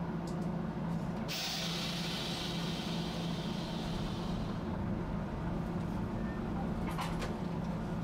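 Tosaden streetcar with a steady low hum, and a sharp hiss of compressed air that starts about a second in and fades over about three seconds, typical of the tram's air brakes or air-worked doors. A few light clicks near the end.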